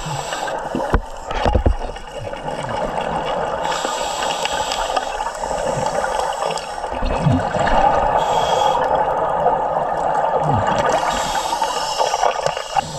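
Scuba regulator breathing underwater: steady gurgling of exhaled bubbles, heard through the camera housing, with a few sharp knocks about a second or two in.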